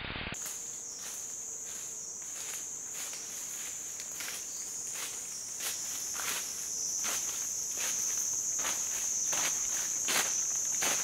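Footsteps in dry leaf litter at an uneven pace, coming closer together and louder later on, over a steady high-pitched insect trill.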